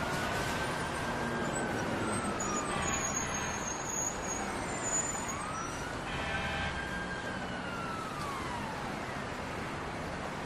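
Emergency-vehicle siren wailing in slow rise-and-fall sweeps, twice, over steady city traffic noise.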